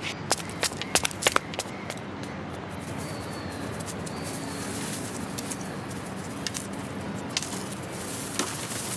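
A quick, uneven run of footsteps clicking on stone steps in the first second and a half, then a steady background with pigeons cooing.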